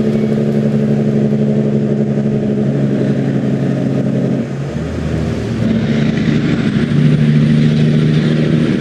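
Peterbilt 389 semi truck's Cummins 605 diesel engine pulling a heavy lowboy load at highway speed, with a steady low engine note. About halfway through the note drops out briefly and comes back at a different pitch.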